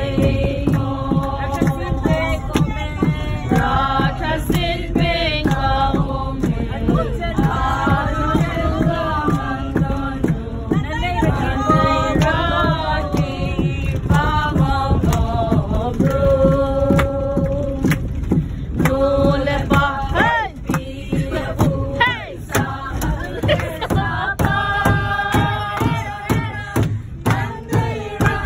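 A group of people singing a Christmas carol together, with held and gliding sung notes throughout, inside a bus over a steady low rumble.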